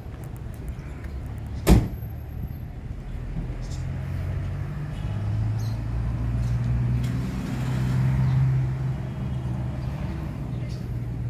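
A sharp bang about two seconds in, a door slamming shut, then a truck's engine running, growing louder toward the middle and easing off again.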